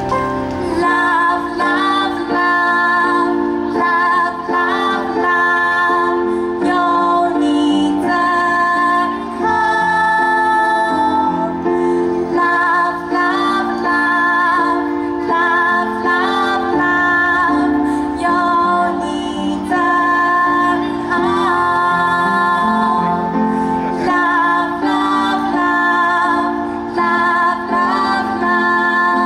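A woman singing a song over instrumental accompaniment, with a wavering vibrato on her held notes.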